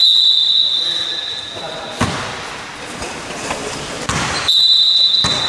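A referee's whistle blown twice as a steady high blast, one of about two seconds and a shorter one near the end, with a basketball bouncing on the court in between.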